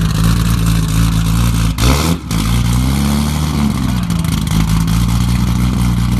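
A modified car engine running steadily, with a short loud burst of noise a little under two seconds in, then revved up and back down.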